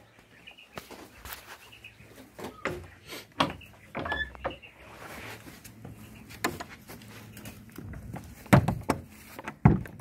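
Footsteps and camera handling noise with scattered knocks and clicks, and a brief high squeak about four seconds in. Two heavy thuds near the end are the loudest sounds.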